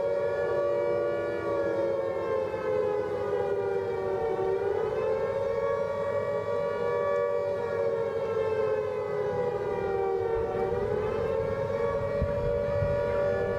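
Civil defense siren wailing: a steady chord of mid-pitched tones whose pitch sags and rises again about every six seconds.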